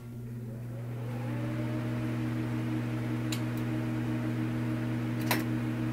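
Film projector sound effect: a steady mechanical hum that builds up over the first second or so as it comes up to speed, with a couple of short clicks later on.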